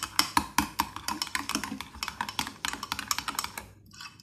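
A spoon clicking and scraping against a glass bowl as a thick mayonnaise and chili garlic sauce is stirred: a quick, uneven run of light clicks that stops just before the end.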